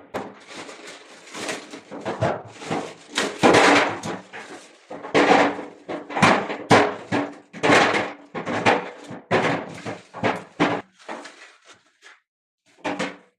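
A busy, irregular run of knocks, thuds and clatter, several a second, thinning out and stopping near the end.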